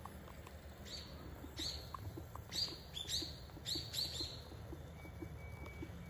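Common kingfisher calling: a run of about seven short, high, sharp notes, each dropping in pitch, bunched between about one and four seconds in, over a steady low background rumble.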